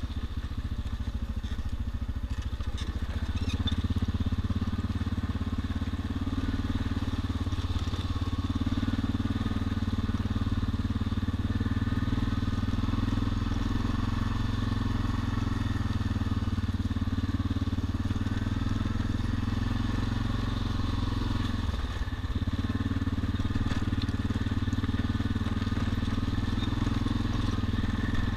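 ATV engine running steadily at low speed over loose rock, with a short dip in the engine sound about three-quarters of the way through.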